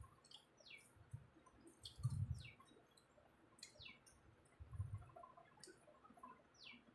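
A bird calling in the background with short chirps, each falling in pitch, repeated several times over quiet, with a few soft low thuds.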